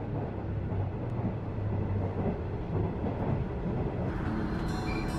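Steady running rumble of a JR KiHa 110 diesel railcar, its engine and wheels on the rails heard from inside the cabin. About four seconds in the sound changes and faint high-pitched tones come in.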